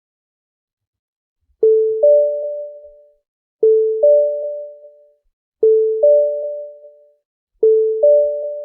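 Nissan in-car system alert chime, two notes rising: a lower tone, then a higher one about half a second later, each ringing and fading. It starts about a second and a half in and repeats four times, about every two seconds.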